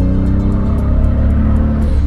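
Nissan R32 Skyline's RB20DET turbocharged straight-six running steadily under way, misfiring on one cylinder so that it runs on only five.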